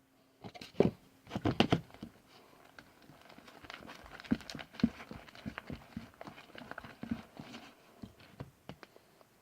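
Fluffy slime being mixed in a bowl with a spatula: irregular small squelching clicks and scraping. A few sharper knocks come in the first two seconds.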